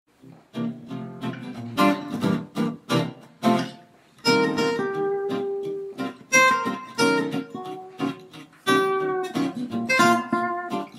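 Intro music played on acoustic guitar, with strummed chords and plucked notes.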